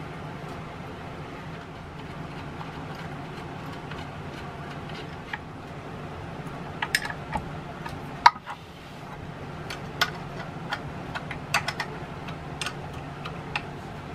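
Scattered metal clicks and taps of a hand wrench and bolts as an engine block is bolted down onto its oil pan, with one sharp knock about eight seconds in, over a steady low hum.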